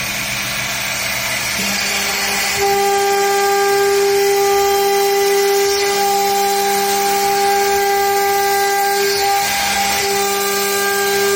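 CNC router spindle running with a steady whine and a low hum underneath; the whine steps up about two seconds in and breaks briefly near the end before resuming.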